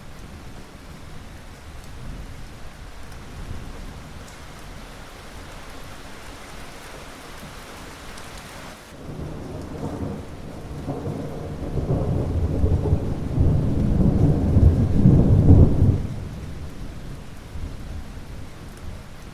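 Steady rain with a long rolling thunderclap: the low rumble builds from about halfway through, grows loudest, then cuts off fairly suddenly, leaving the rain.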